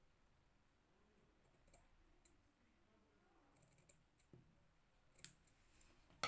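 Scissors snipping woolen yarn: a few faint, scattered clicks of the blades closing, with a sharper, louder click at the very end.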